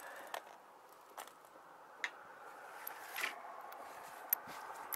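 Faint handling noises from a safety rope and harness rope grab being worked by gloved hands: a few scattered clicks and short scrapes, one a little longer about three seconds in and the sharpest just past four seconds, over a steady low hum.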